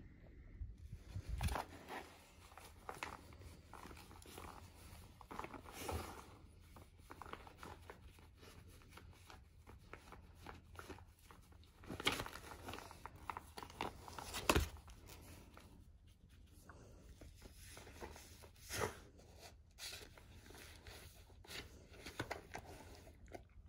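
Paper rustling and crinkling as a dog noses and pulls at the folded pages of an old book to get treats hidden between them, with a few louder sharp crackles of paper, the loudest two near the middle.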